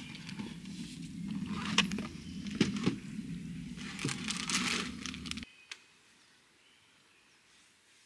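Tteokbokki sauce bubbling and popping in a wide pan on a camping stove, with a crackling hiss and a low steady hum beneath. It cuts off suddenly about five and a half seconds in, leaving only faint background.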